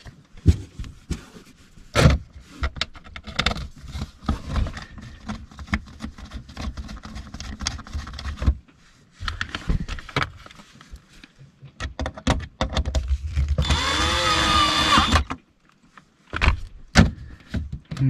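Knocks and rattles of the RV's lower dash panel being fitted back into place, with a power drill whirring for about a second and a half near the end as it drives a panel screw.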